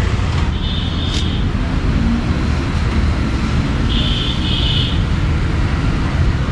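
Steady low rumble of road traffic, with a brief high-pitched tone about half a second in and two short ones around four seconds in.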